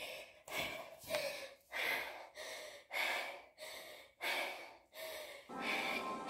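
A woman panting hard from exertion during push-ups and burpees, quick loud breaths about twice a second. Music with held notes comes in near the end.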